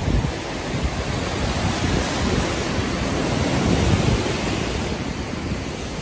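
Wind rushing over the microphone of a camera carried on a moving bicycle: a steady roar with an unsteady low rumble that swells and dips.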